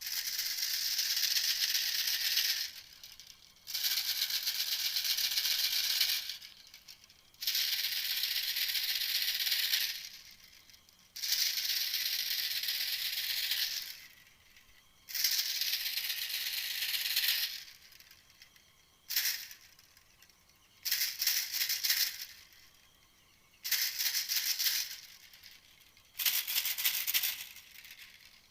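Recorded animal call played as a hunting lure: a dry, buzzy rattling trill repeated in bursts of one to three seconds with short pauses between them, about ten times.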